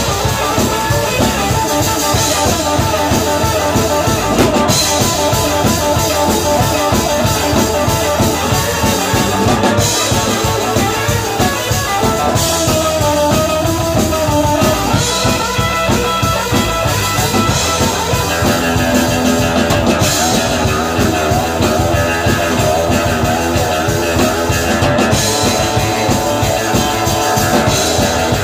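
Live rock band playing: a Telecaster-style electric guitar over a drum kit and bass guitar.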